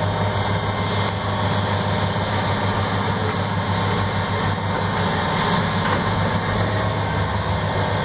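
Diesel engines of crawler excavators, the nearest a John Deere 470G, running steadily as they work, a continuous low drone.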